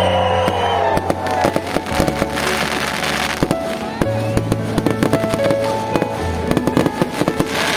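Fireworks bursting and crackling in rapid, irregular succession over loud music with a held bass line.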